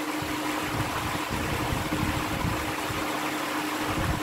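Steady fan noise, an even hiss with a constant low hum and some uneven low rumble.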